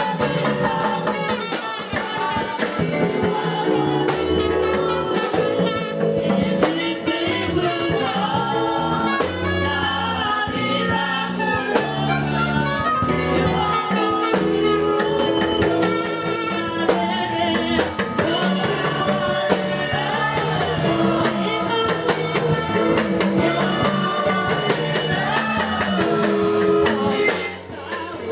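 Live gospel worship music: a band with a drum kit playing, with singing over it. A brief high-pitched tone sounds near the end.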